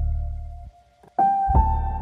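Background music: slow keyboard piece with held tones that change chord a little after a second in, over deep bass hits at the start and again about one and a half seconds in.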